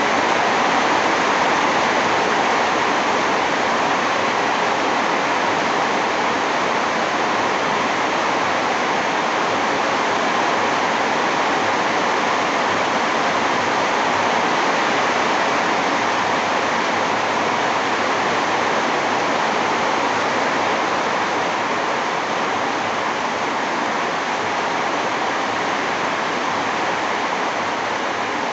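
Steady heavy rain falling on a veranda: a dense, even rush of water with no single drops standing out.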